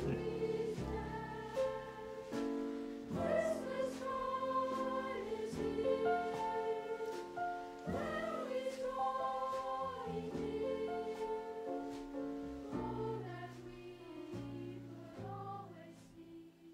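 Background music: a choir singing slow, sustained notes, fading out near the end.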